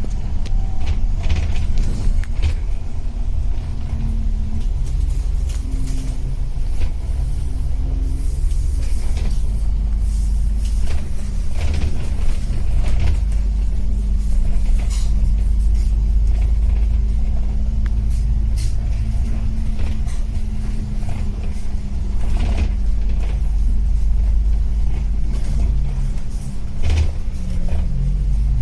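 A road vehicle's engine running with a steady low rumble and hum, with scattered light clicks and rattles.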